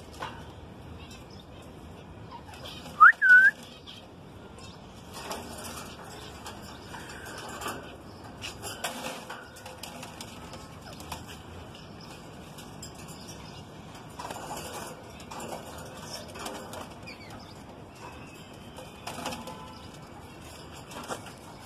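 Female cinnamon ringneck parakeet in a wire cage: scattered rustling and fluttering, with one short, loud rising whistle in two quick parts about three seconds in.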